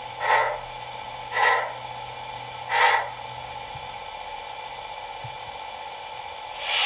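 Sound decoder of an HO-scale model of a RENFE Mikado steam locomotive, played through its small onboard speaker, giving three exhaust chuffs about a second and a quarter apart as the engine rolls to a stop, the last about three seconds in. After that only a steady low hum and faint hiss remain.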